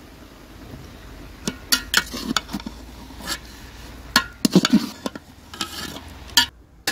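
Metal spatula stirring grated carrots and desi ghee in a large metal degchi, scraping and clanking against the pot in irregular strokes that begin about a second and a half in.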